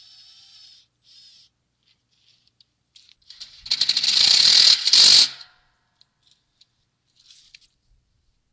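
Cordless impact driver hammering on a fastener under a deer feeder's hopper, loud and rapid, for about a second and a half with a brief break near the end, undoing the old solar panel's mounting hardware. Two short, quieter whirs come first.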